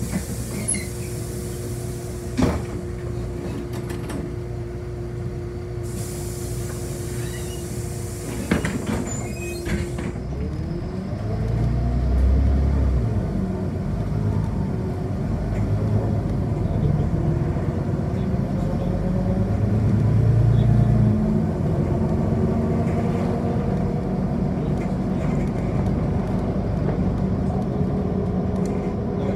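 City bus heard from inside, idling at a stop. About six seconds in comes a pneumatic hiss lasting some four seconds, with a click or two around it. Then the bus pulls away, its engine growing louder and rising in pitch as it accelerates.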